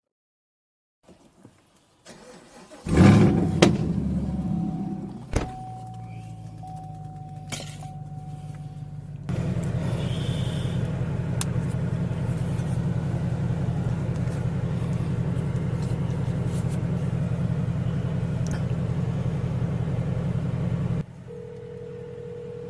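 Chevrolet Camaro SS's 6.2-litre V8 starting about three seconds in, with a loud flare that settles into a steady idle. About nine seconds in the running gets louder and stays steady, then drops back near the end, when a steady phone-call tone comes in.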